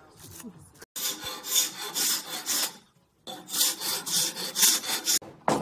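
A sanding block rubbed back and forth along an African mahogany board, about three quick strokes a second, in two runs with a short pause about three seconds in.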